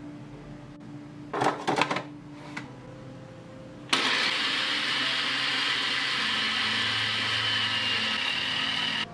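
Electric food processor switching on suddenly about four seconds in and running steadily, its blade blending flour, sugar and vegetable margarine into pie dough. It is preceded by a few short clatters.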